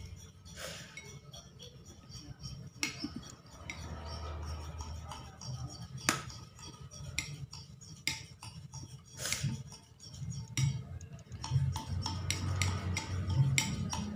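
Metal spoon clinking and scraping against a ceramic bowl while stirring liquid glue, with irregular clinks throughout.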